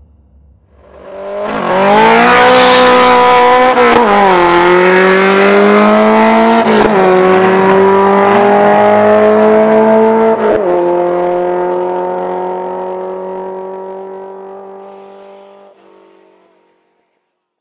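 Car launching from a drag strip start line and accelerating hard, the engine revving up through the gears with three upshifts where the pitch drops sharply. The sound then fades steadily as the car runs away down the strip.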